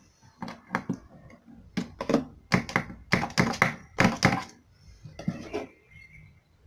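Irregular knocks and taps, a dozen or so, from a planter box being turned over and handled while its drainage hole is searched for.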